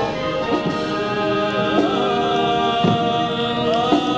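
Orchestral music with brass playing long, sustained chords; a wavering melody line comes in about two seconds in.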